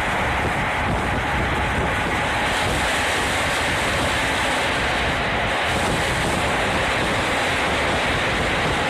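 Steady rush of wind and running noise from a moving passenger train, heard at an open carriage window with wind buffeting the microphone.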